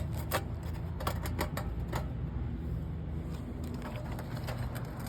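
Irregular light clicks and crackles as a pry bar is worked under old three-tab asphalt shingles, breaking the shingles free of their tar seal, over a steady low rumble.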